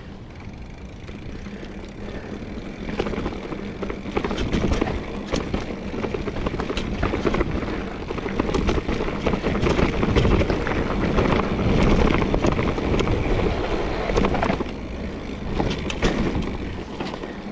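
Trek Fuel EX 5 full-suspension mountain bike being ridden along a rough dirt trail: steady tyre noise with many quick rattles and knocks from the bike over bumps. It grows louder about three seconds in and eases off near the end.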